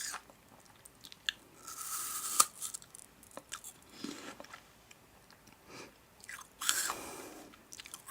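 Crunchy biting and chewing of food, with two louder crackling bursts about two seconds in and near the end.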